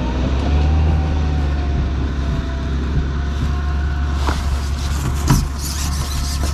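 Wind buffeting an outdoor microphone: a steady, heavy low rumble. In the last couple of seconds a scratchy hiss and a few sharp knocks join in as the fishing pole is handled and lifted.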